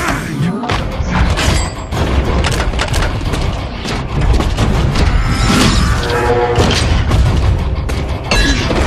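Film battle sound effects of giant robots fighting: repeated heavy metallic impacts, booms and crashes over a deep rumble, with the film's music score underneath.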